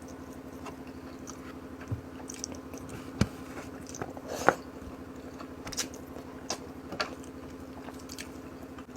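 Close-up chewing and mouth sounds of a person eating: short wet smacks and clicks about once a second, over a steady low hum.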